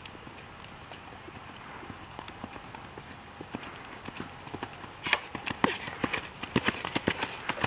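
Ridden horse's hoofbeats on arena sand, a quick run of strikes that grows much louder from about five seconds in as the horse comes close.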